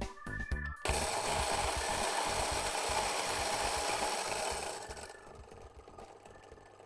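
Electric coffee grinder running, a dense whirring grind that starts about a second in, holds steady for about four seconds, then winds down and fades out.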